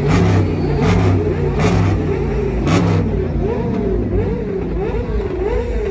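Supercar engine revved through its exhaust in quick repeated blips, the pitch rising and falling over and over, with a few sharp cracks in the first few seconds.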